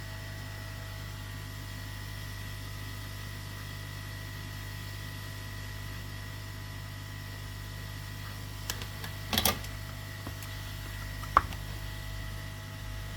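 Steady electrical hum with a faint high whine. A short cluster of clicks comes about nine seconds in, and a single sharp click about two seconds later.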